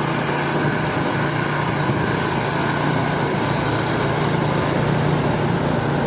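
A small engine running steadily, a constant low hum under a wide hiss.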